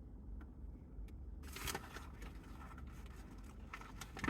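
Eating sounds from a fast-food meal: soft clicks of chewing and a brief rustle, like a paper wrapper, about a second and a half in, over a low steady hum.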